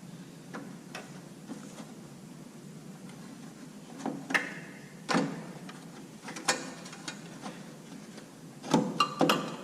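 Scattered clicks and knocks of a headlight trim piece and its fittings being handled and pushed into place, with a quick run of several knocks near the end.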